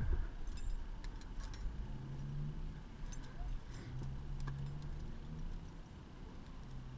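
Climbing gear being handled on a harness: faint scattered clicks and clinks of carabiners and hardware over a low rumble.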